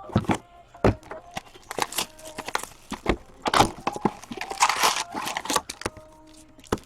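Plastic wrapping and foil card-pack wrappers crinkling and tearing as a box of O-Pee-Chee Platinum hockey cards is opened, with irregular crackles and rustles throughout.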